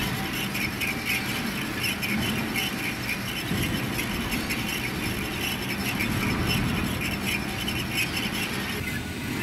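Metal lathe running with a cutting tool turning a bushing, chips coming off, over a steady low motor hum with an irregular high-pitched chatter from the cut.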